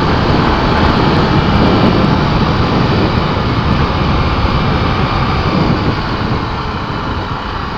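Honda XR250 Tornado motorcycle on the move, its engine buried in a steady rush of wind on the action camera's microphone; the noise eases slightly near the end.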